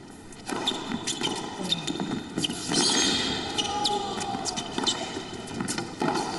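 Tennis rally on a hard court: racquets striking the ball and the ball bouncing, a string of sharp hits over a low crowd murmur.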